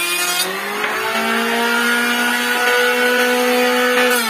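Electric motor and cutter of a homemade table-mounted woodworking machine running with a steady whine. About half a second in, the cutting noise stops and the pitch rises as the cutter spins free. Near the end the cutting noise returns and the pitch drops as it takes up load in wood again.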